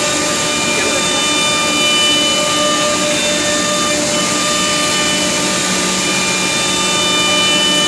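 Woodmaster 3-spindle 5-axis CNC wood router running, a steady mechanical sound with several held whining tones and an evenly pulsing low hum.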